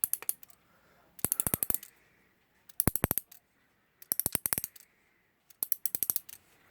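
Mainspring of a Salmon Mauthe alarm clock movement being wound with a key: the click snaps over the ratchet wheel in quick runs of clicks, about five runs roughly a second and a half apart, one for each turn of the key.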